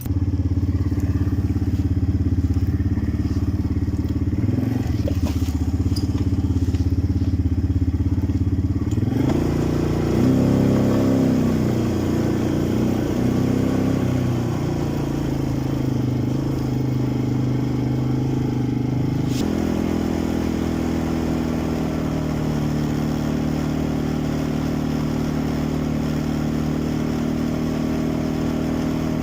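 Quad bike (ATV) engine running under way, a steady drone. About nine seconds in, the revs rise and fall for several seconds, then settle back to a steady pitch after a sharp shift partway through.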